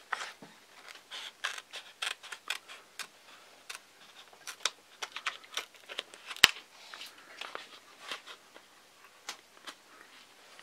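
Scissors cutting thin clear plastic of a model-aircraft canopy: a run of irregular short snips and crackles as the blades work through the sheet, with one sharper, louder snap about six and a half seconds in.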